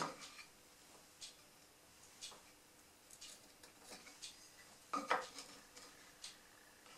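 Faint, scattered clicks and light knocks of small wooden pieces being handled and set against each other on a workbench, with a louder clatter about five seconds in.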